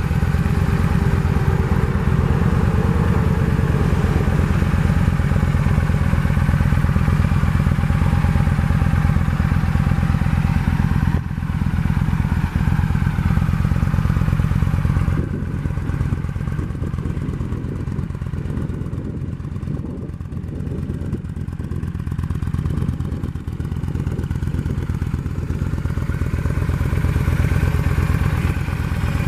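2007 Yamaha V-Star 1300's V-twin idling steadily through its gutted stock exhaust, an even deep pulse. The sound is a little quieter through the second half.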